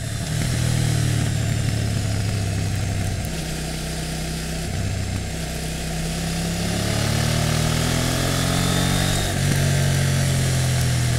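KTM 790 Duke's LC8c parallel-twin engine through its stock exhaust while riding. The note eases off about three seconds in, then climbs with the revs from about six seconds and drops suddenly near nine seconds, over a steady rush of wind.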